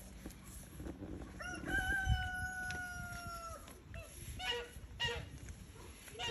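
A rooster crowing once, a long call held on one note for about two seconds. A few short calls from other farm fowl follow near the end.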